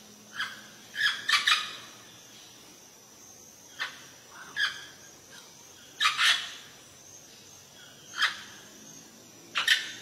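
Parrot giving short, harsh squawks every second or two, some doubled in quick succession, about seven calls in all.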